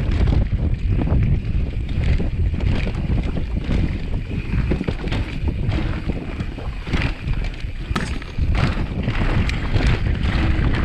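Wind buffeting the microphone while riding a mountain bike, with a low rumble and frequent sharp knocks and rattles from the bike.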